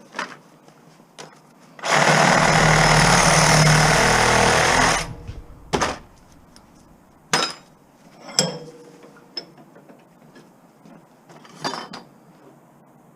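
A power tool runs loud for about three seconds, then a few sharp metal knocks and clanks follow as scrap is handled.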